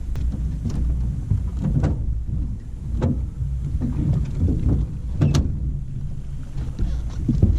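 Small fishing boat on the water: a steady low rumble with scattered knocks and clunks, the sharpest about three seconds in and again past five seconds.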